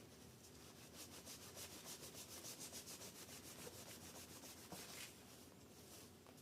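Tissue wiping thermal paste off a CPU's metal lid: faint, quick back-and-forth rubbing strokes, about five or six a second, easing off near the end.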